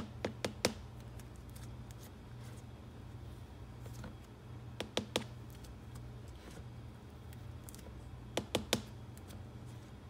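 Clusters of three or four sharp plastic clicks, at the start, about five seconds in and near the end, as a plastic shaker of fine glitter is shaken and tapped over a cup of slime. A low steady hum runs underneath.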